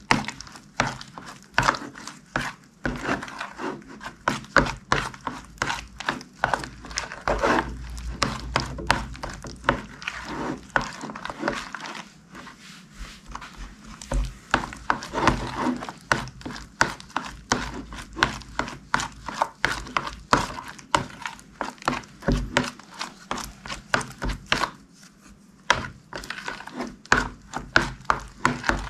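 Slime being squished and kneaded by hand: a dense run of sticky clicks and pops, easing off briefly twice.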